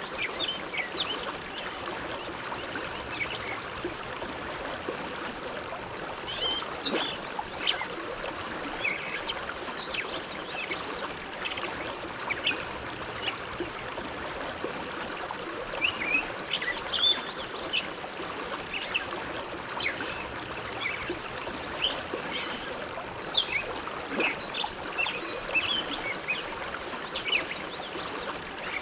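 The Bow River flowing: a steady rush of water with many short, high-pitched plinks and gurgles scattered through it.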